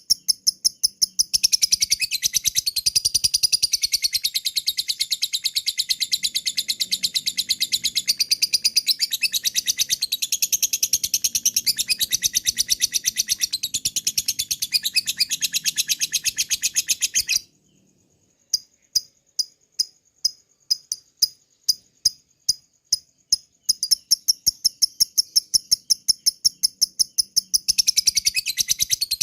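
Lovebird 'ngekek': a long, rapid, unbroken trill of shrill high notes that stops abruptly about 17 seconds in. After a brief pause come separate sharp chirps at roughly two or three a second, and the fast trill starts again near the end.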